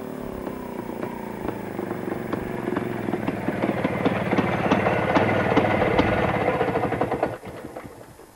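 Motorcycle engine running as the bike rides up close, growing steadily louder with a rapid firing beat, then falling away sharply about seven seconds in.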